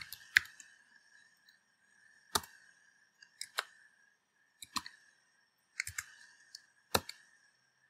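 Computer keyboard keystrokes: about a dozen separate key clicks at irregular spacing, some in quick pairs or threes, as code is typed. A faint steady high-pitched hum runs underneath.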